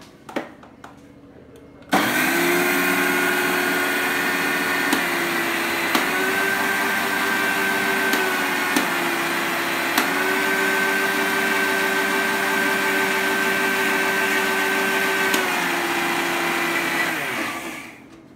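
Electric mixer grinder with a small steel jar grinding semolina (rava) into powder: the motor starts abruptly about two seconds in, runs steadily with a few brief dips, then spins down near the end. A few light clicks of the jar being handled come just before it starts.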